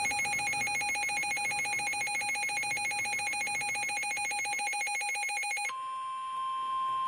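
Emergency weather alert tones: a fast-warbling electronic alarm tone, which switches nearly six seconds in to one steady high tone, the NOAA Weather Radio warning tone that comes before a tornado warning message.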